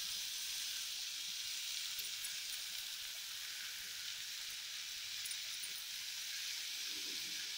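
Wet, freshly washed spinach leaves sizzling steadily in hot oil and masala in a metal pan.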